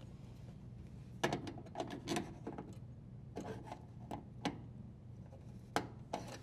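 A scattered run of short metallic scrapes and clicks as a flathead screwdriver is worked against a metal strain relief nut on a dishwasher's electrical junction box, snugging it tight, while the supply wires are handled.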